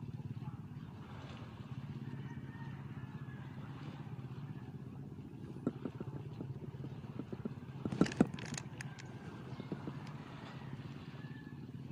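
Steady low engine drone with a fine, even pulse, like a motor running. About eight seconds in there is a short cluster of sharp knocks and clicks.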